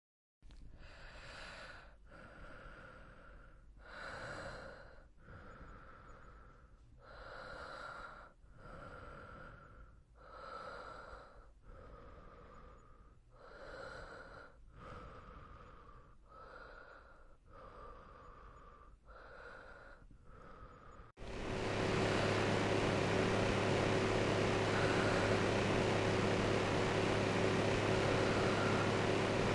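A woman's slow, calm breathing close to the microphone, quiet inhales and exhales following one another every second or two. About two-thirds of the way in, a steady electric fan noise starts abruptly, an even hiss with a low hum, louder than the breathing.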